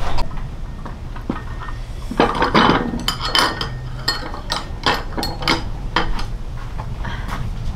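Dishes and metal utensils clinking and knocking together in a quick irregular run of sharp clinks, some ringing briefly.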